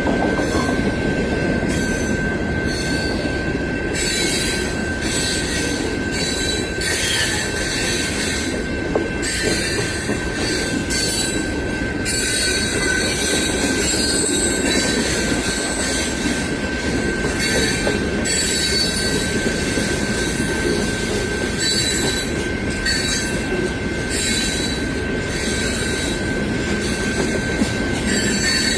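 Long freight train rolling past, its steel wheels squealing in one steady high tone over the continuous rumble of the cars.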